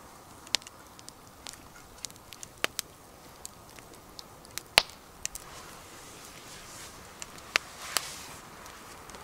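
Wood campfire crackling: irregular sharp pops and snaps over a faint steady hiss, the loudest pop a little under five seconds in.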